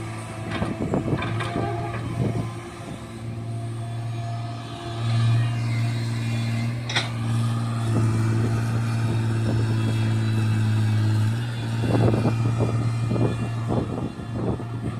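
Komatsu excavator's diesel engine running steadily, with scattered knocks and clanks, most of them in the first couple of seconds and again near the end.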